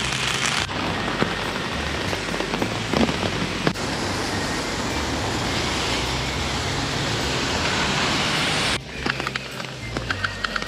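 Heavy rain falling steadily, a dense even hiss, with a few sharp taps of drops near the end. The sound changes abruptly twice, about a second in and near the end, where the recording is cut between shots.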